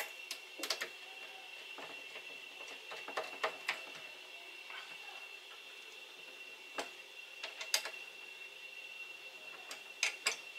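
Small hand screwdriver turning a screw into a keyboard tray clamp, giving scattered light clicks and scrapes at irregular intervals.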